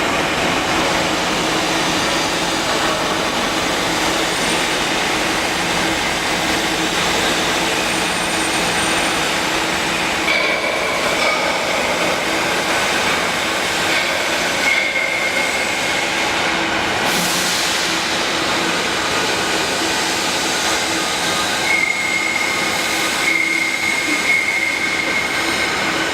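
Hydraulic boiler welding upender running: a steady machine drone with a constant low hum, and a high squeal that comes and goes several times, strongest near the end.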